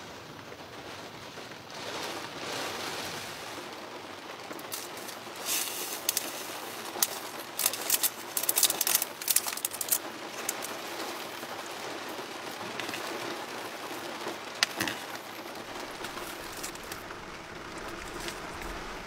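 Steady rain, with a cluster of sharp crackles and clicks from about five to ten seconds in and one more near the end.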